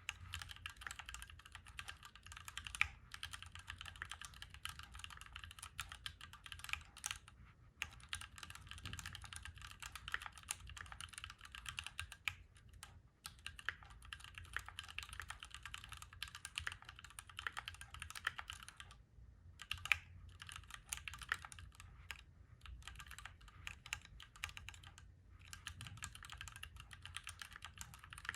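Fast typing on a Keychron Q1 Knob mechanical keyboard: dense runs of keystrokes broken by short pauses every few seconds.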